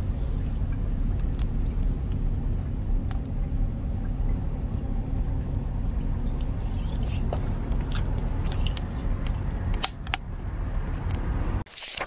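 Wood fire burning in a homemade double-wall, secondary-combustion fire pit: a steady low rumble with scattered sharp crackles and pops from the burning wood. It cuts off near the end.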